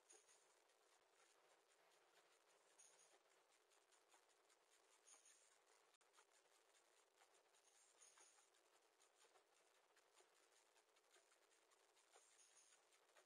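Near silence inside a wooden nest box: faint hiss with soft scratchy ticks, and a few faint high-pitched chirps every few seconds.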